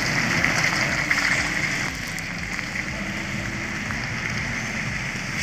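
Loaded Mercedes-Benz Actros logging truck running under heavy load, its engine drone under a steady hiss like rain or wet-road noise.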